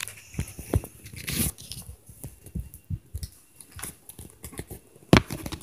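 A run of irregular knocks and thumps in a small room, with a single sharp one loudest about five seconds in. The recorder takes them for upstairs neighbours stomping.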